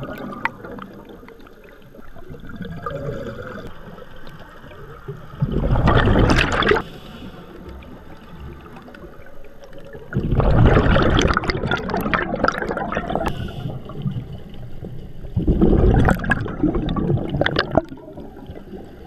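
Scuba regulator exhaust bubbles gurgling and rushing past an underwater camera in three bursts, the middle one longest, with quieter water noise between.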